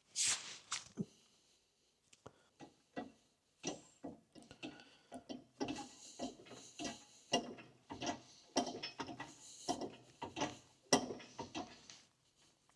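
Irregular small metallic clicks, taps and scrapes as universal joint parts are worked into a driveshaft yoke by hand, with a few sharper knocks among them.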